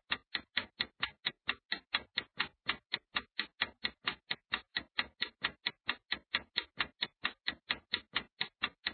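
Clock-ticking sound effect for a countdown timer: a steady, even run of sharp ticks, about four a second.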